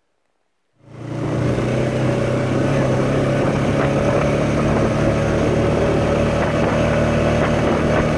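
Four-wheeler (ATV) engine running at a steady speed while riding on a dirt road, with road and wind noise. It cuts in suddenly about a second in after near silence.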